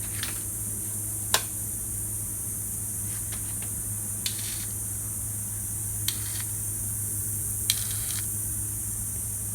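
A 110cc ATV's electric starter being tried four times: each press gives a sharp click, three of them followed by a brief grinding whirr, and the engine does not crank over. Clicking or grinding like this persisted after a new starter and solenoid, and the owner traces it to a bad battery.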